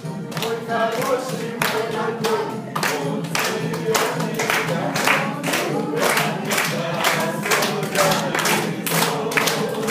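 A group of people singing together while clapping in rhythm, about three claps a second.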